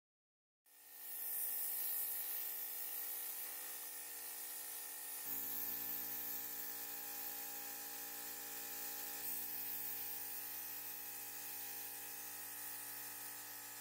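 A power tool's motor running steadily with a high hiss, starting abruptly just under a second in; its pitch shifts suddenly twice, as between cut clips.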